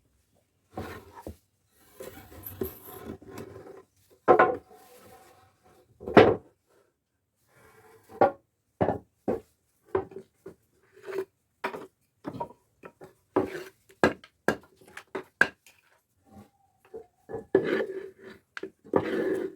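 Irregular wooden knocks and clatter, some with a short hollow ring, as timber and tools are handled on a workbench; the mortiser's motor is not running.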